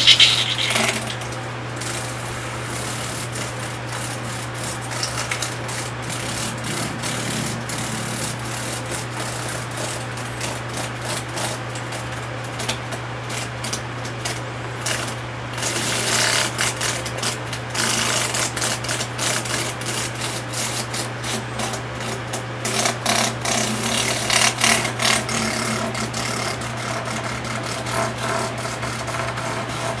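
Giant cicada, seized by a scorpion, giving broken rattling buzzes and fluttering its wings in distress over a steady low hum. The rattling comes in two louder spells, about halfway through and again a few seconds later.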